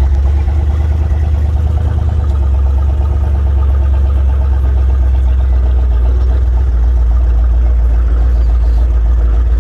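Twin-turbo Ford F-100's engine running steadily with a deep, loud rumble, heard from inside the cab as the truck drives, with no revving.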